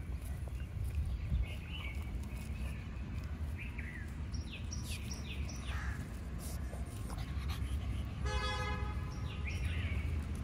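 Outdoor background of a steady low rumble with birds chirping, and light scratching of puppies' paws digging in loose dirt. About eight seconds in, a horn-like toot lasts about a second.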